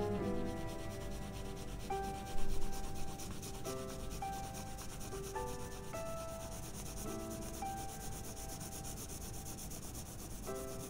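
Graphite pencil shading on drawing paper: a steady scratchy rubbing of repeated strokes as a cylinder is toned. Quiet background music plays underneath, its notes changing every second or so.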